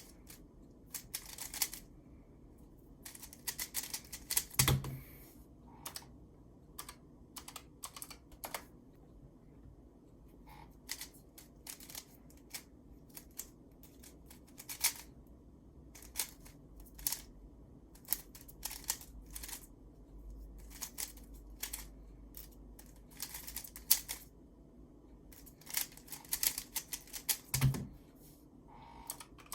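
Plastic 3x3 speedcube being turned fast: bursts of rapid clicking turns with short pauses between them, and a couple of soft thumps.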